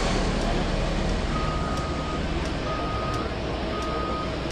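A vehicle's reversing beeper sounds three times at an even pace, beginning about a second and a half in, over a steady rumble of machinery and hiss.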